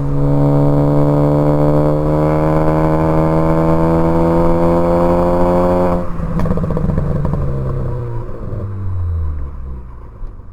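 A tuned 2014 Ford Focus ST's turbocharged 2.0-litre four-cylinder accelerating hard through a gear, its revs climbing slowly. About six seconds in the throttle closes and the catless exhaust crackles and pops on the overrun as the revs fall away.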